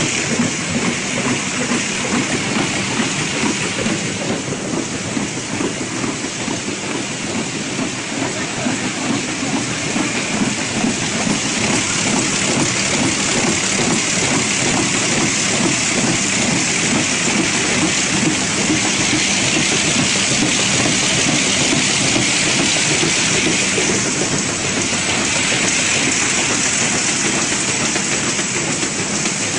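High-speed carton folder-gluer running: a steady, dense mechanical clatter of belts, rollers and cardboard blanks feeding through, with a hiss over it.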